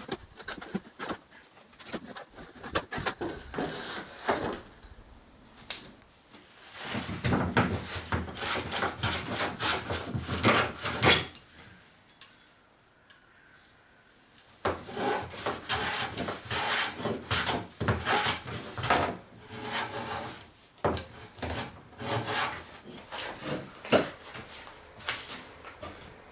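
A hand tool rubbing and rasping on wood in rapid repeated strokes, in two long runs with a pause of about three seconds in the middle.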